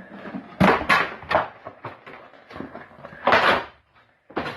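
Three sharp knocks in quick succession, then a longer rasping scrape about three seconds in: floor debris and old wooden floorboards being handled during demolition of a termite-damaged floor.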